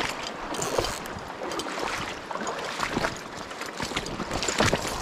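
Fast river water rushing and splashing close by, broken by many irregular short knocks and scrapes.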